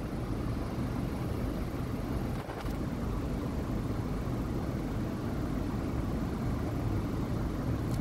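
Car engine idling, heard from inside the cabin as a steady low rumble, with a faint brief knock about two and a half seconds in.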